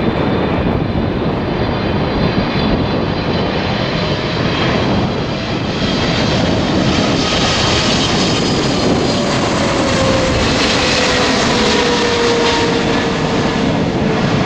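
Boeing 777F freighter's GE90 jet engines on low final approach passing close overhead: a loud, steady jet rumble with whining tones that slowly fall in pitch as it goes past.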